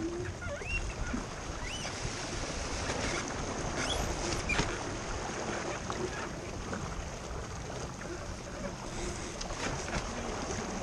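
Water rushing along the hull of a sailing keelboat under way, with steady wind noise and a few short high squeaks in the first half.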